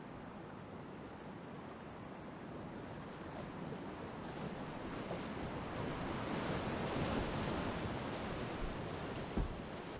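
Rushing white water of a small river rapid, building louder through the middle as the kayak runs into the broken water, then easing. A short low thump near the end.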